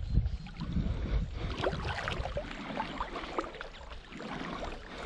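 Shallow lake water sloshing and splashing as someone wades through it, in a string of irregular small splashes and drips over a low rumble.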